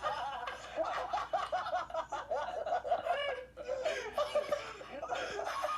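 A person laughing in a quick run of short, high-pitched, breathy gasps: a wheeze laugh.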